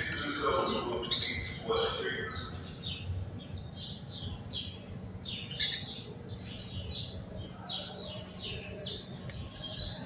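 House sparrows chirping: a continuous stream of short, repeated cheeps, several a second, from a small group of birds.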